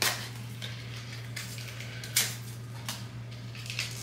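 Light clicks and rustles of small plastic lash-making items handled by hand, with two sharper clicks, one right at the start and one about two seconds in, over a steady low hum.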